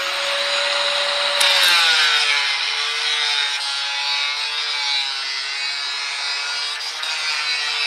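Angle grinder cutting a scoring line into a strip of galvanised steel sheet. It runs at speed, then about one and a half seconds in the disc bites into the metal: it gets louder, and its pitch drops a little and stays lower under the load.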